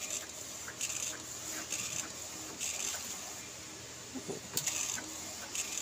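Epson L1300 inkjet printer printing, its print-head carriage sweeping back and forth along the guide rail. It is faint, with a soft hiss that comes back about once a second as the carriage makes its passes.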